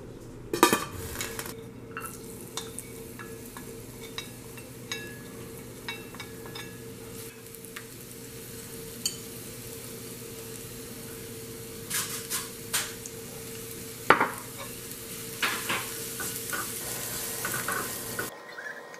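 Chopped garlic frying in oil in a small pan, sizzling, with a spoon stirring and clicking against the pan. A sharp metal clank comes about half a second in and another about two-thirds of the way through.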